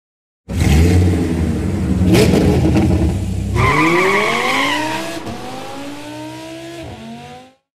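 Car sound effects in a channel intro sting: a deep engine rumble with a sudden whoosh about two seconds in, then a high tyre-like squeal as a sports car engine revs up, its pitch climbing with a couple of gear-change drops, cut off abruptly near the end.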